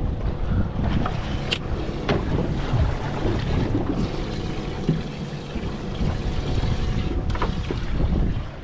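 Wind buffeting the microphone over sea water on a boat, with a few short clicks and knocks as the livewell hatch is handled and a dip net is worked through the bait well for a pilchard.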